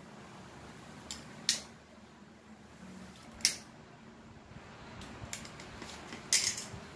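A few short, sharp snips and clicks of a small hand cutting tool working electrical wire: two close together about a second in, one about three and a half seconds in, and a quick group near the end.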